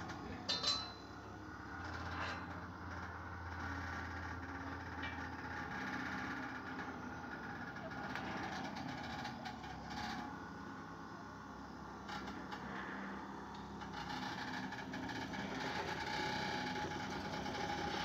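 An engine running steadily at idle, with a sharp, ringing metal clank of steel plate about a second in.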